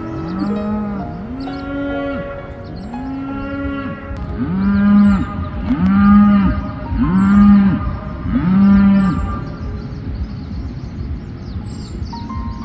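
A cow mooing over and over in short calls, about seven in a row, louder towards the middle and stopping about nine seconds in.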